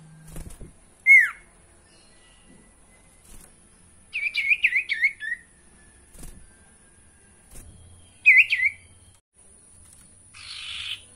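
Common iora (sirtu) calling: a single falling whistle, then a quick run of about eight chirping notes, a shorter burst of chirps a few seconds later, and a brief scratchy noise near the end. A couple of soft thumps as the bird hops about its cage.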